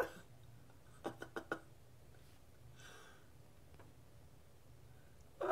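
Faint room tone with a quick run of four light clicks about a second in, and one more faint click near the middle.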